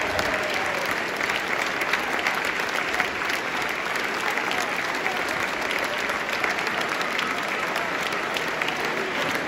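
A large crowd of football supporters applauding steadily, dense clapping with no break.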